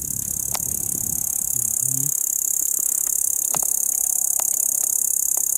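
Field insects chirring steadily in a high-pitched, unbroken drone, with a few faint clicks and a brief low voice murmur about two seconds in.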